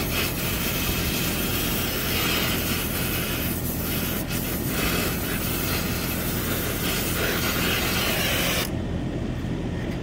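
Oxy-acetylene torch flame hissing steadily while it heats a copper suction-line joint for brazing, over a steady low hum. The hiss stops abruptly about nine seconds in.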